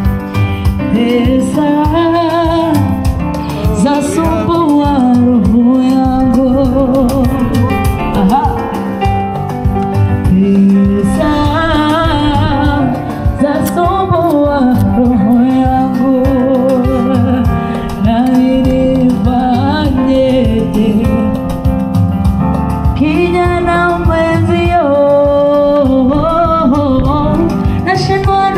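A woman singing a slow song with a lot of vibrato over instrumental accompaniment.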